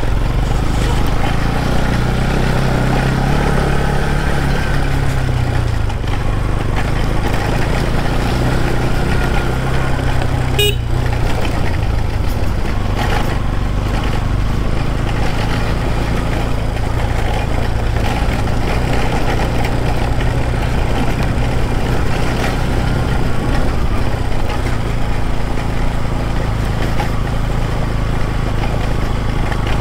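Motorcycle engine running while riding, its pitch rising and falling with the throttle, over a steady rushing noise. A brief sharp sound comes about eleven seconds in.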